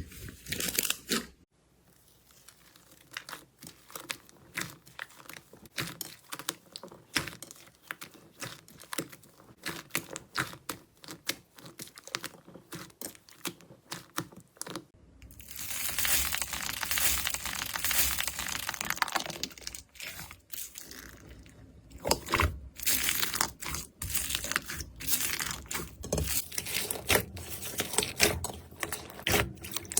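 Slime being squeezed and worked by hand, giving quick crackling pops and crunches, with a denser, continuous crackle for a few seconds in the middle.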